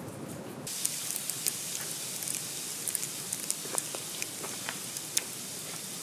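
Falling precipitation: a steady hiss with many scattered sharp ticks as it strikes nearby surfaces. About half a second in, the sound changes abruptly from a lower, duller patter to the brighter, ticking hiss.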